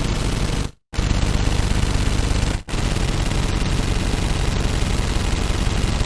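Automatic gun firing in long, rapid, sustained bursts. A short silent break comes just before the first second, and the firing stops for an instant about two and a half seconds in before carrying on.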